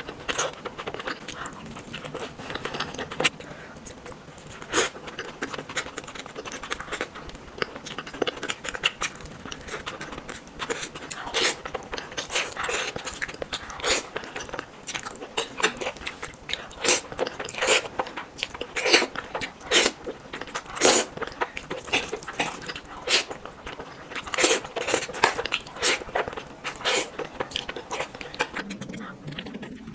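Close-miked crunchy biting and chewing: a person eating, with a dense, uneven run of sharp crunches.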